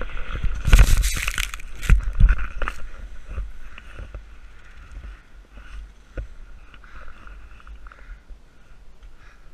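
A skier's fall: a loud scraping, crunching tumble of skis and body into the snow about a second in, with a few hard knocks around two seconds, then quieter shuffling in the snow. A low wind rumble runs on the camera's microphone throughout.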